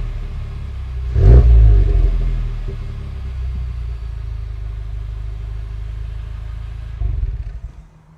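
Honda Civic Type R FK8's turbocharged four-cylinder exhaust: a single quick rev about a second in, falling back to a steady idle. The engine is switched off about seven seconds in and dies away within a second.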